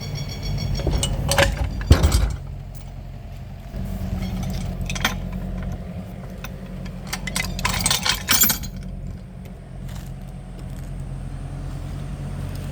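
Metal tools clinking and knocking several times, the loudest strike about two seconds in, over a low steady mechanical hum.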